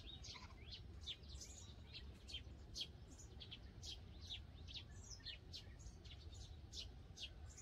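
Small birds chirping: a quick, steady run of short, high chirps, each dropping in pitch, over a faint low rumble.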